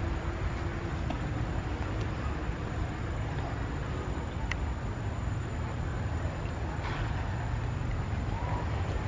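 Steady low outdoor rumble with a faint steady high tone over it and a single faint click about four and a half seconds in.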